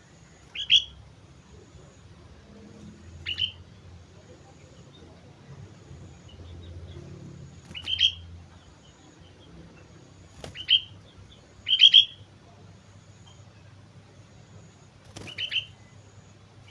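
Sooty-headed bulbul (kutilang) calling: six short, bright chirping phrases a few seconds apart, two of them close together about twelve seconds in.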